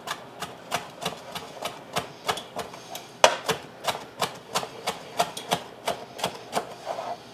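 Chef's knife chopping fresh dill on a cutting board: a steady run of sharp knocks of the blade on the board, about three a second.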